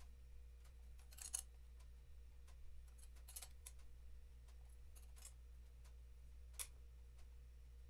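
Faint scattered metallic clicks and taps of a steel cylinder-head bracket and a spanner being handled against a motorcycle engine's cylinder head, the sharpest click near the end, over a low steady hum.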